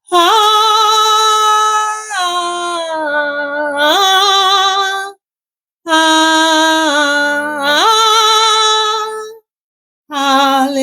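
A woman singing slow, drawn-out worship phrases alone, with no accompaniment, her held notes wavering with vibrato. Two long phrases are broken by a brief pause, and a third begins near the end.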